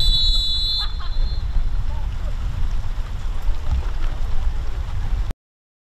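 Referee's whistle giving one long blast of about a second, the full-time whistle, over a steady rumble of wind on the microphone. The sound cuts off suddenly near the end.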